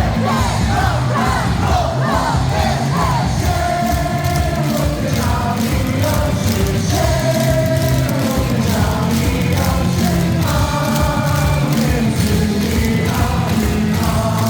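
Baseball crowd singing a team cheer song in unison over loud amplified backing music with a steady beat.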